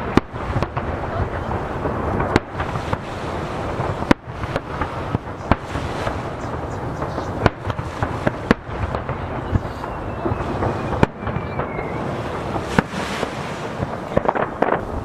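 Aerial firework shells bursting over the sea, with sharp booms every second or two that echo off the nearby mountains. Beneath them runs the steady wash of waves and wind.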